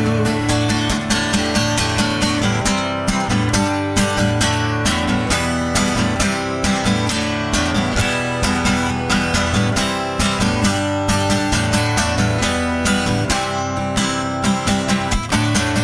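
Instrumental break in a rock song: strummed guitar over a bass line and a steady beat, with no singing.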